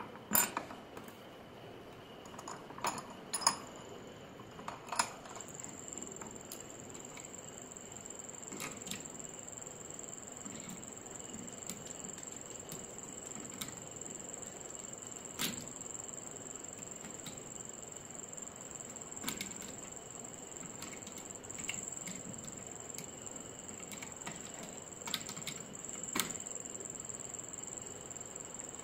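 Metal clinks and taps of hand tools against the steel parts of a manual animal hair clipper: several sharp clinks close together in the first five seconds, then scattered single ones. A steady high whine sets in about five seconds in.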